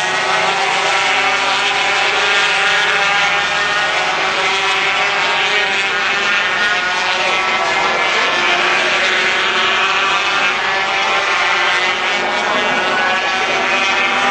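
A pack of 250cc two-stroke Grand Prix racing motorcycles passing at high revs, many engines heard at once with overlapping pitches rising and falling.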